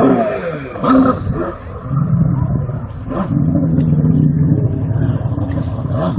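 Jet ski engine: its revs fall away at the start, it blips briefly about a second in, then it runs at a steady drone from about two seconds in.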